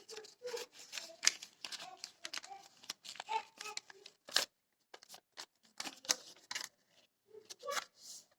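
A sheet of paper being handled and folded by hand: an irregular run of crisp rustles and crackles, with a short lull about halfway through.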